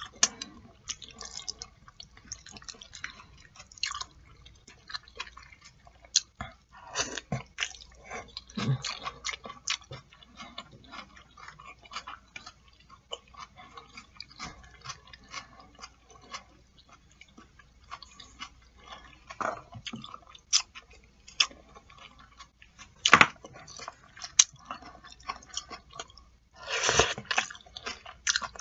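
Close-miked wet chewing and lip smacking of jajangmyeon, black bean sauce noodles: many short clicky mouth sounds, with a longer slurp of about a second near the end.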